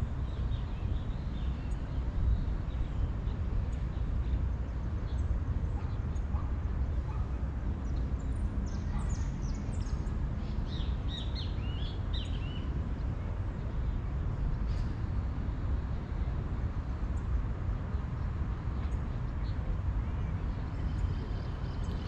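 Outdoor ambience: a steady low rumble with birds calling, a flurry of short, rapid bird calls about eight to twelve seconds in and scattered single chirps elsewhere.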